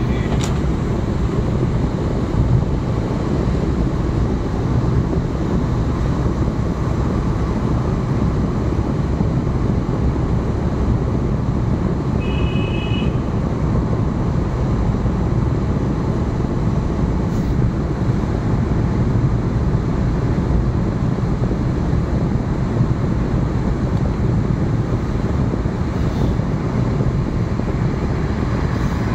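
Steady engine and tyre road noise heard from inside a car's cabin while driving through a road tunnel. A brief high tone sounds about twelve seconds in.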